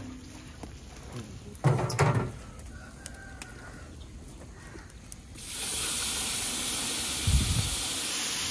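Water poured from a metal jug into a large aluminium cooking pot over a wood fire. It gives a steady rushing hiss that starts suddenly about halfway through and holds to the end.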